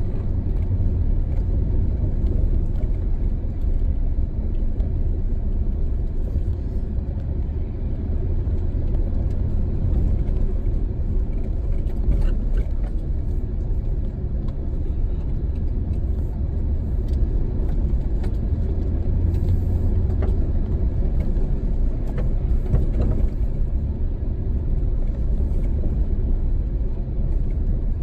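Steady low rumble of a 4x4 driving through deep snow, heard from inside its cabin, with a few faint clicks and rattles scattered through.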